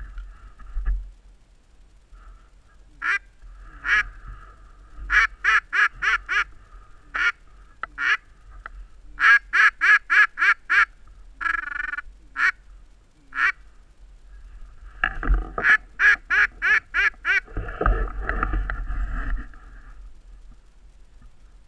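Loud mallard-style quacks, some single and some in quick descending runs of five to seven, a few a second. Near the end comes a longer, rougher stretch of calling.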